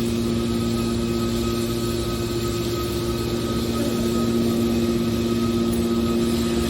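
Industrial machinery running steadily: an even drone with a few constant humming tones.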